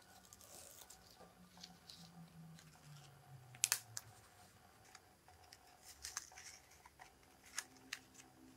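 Stiff cardstock greeting cards being handled and opened by hand: soft paper rustles with several sharp clicks, the loudest a quick pair a little before the middle.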